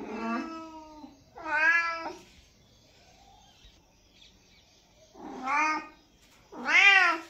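Domestic tabby cat meowing four times: two meows in quick succession, a pause of about three seconds, then two more, each call rising and then falling in pitch.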